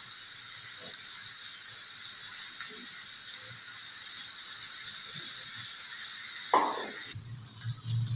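Beef keema tikkis sizzling on a flat tawa griddle: a steady fine crackle of frying. About seven seconds in the sound changes abruptly and a low hum comes in under a fainter sizzle.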